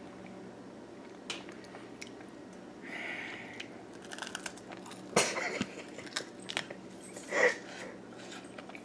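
A person biting into and chewing a piece of flour-crusted fried squirrel: a few scattered crunches and mouth clicks, the largest about five seconds in, over a faint steady hum.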